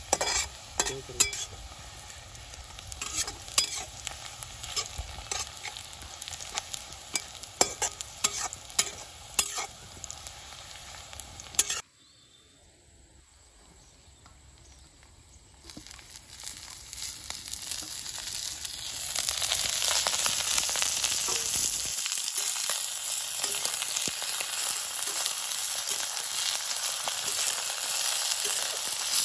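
Metal spatula scraping and clinking in a kadai (Indian wok) as sliced onions fry in oil. About twelve seconds in it goes quiet. A few seconds later a loud, steady sizzle builds as snails in their shells fry in the hot oil with the onions.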